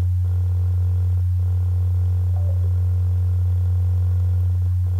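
Loud, steady low hum of electrical interference in the recording, unbroken and unchanging.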